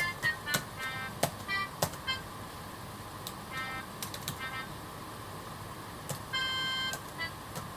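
Computer keyboard keys clacking as they are played like a button accordion, each press sounding a synthesized MIDI note from software. Short scattered notes come first, then a held chord from about six seconds in.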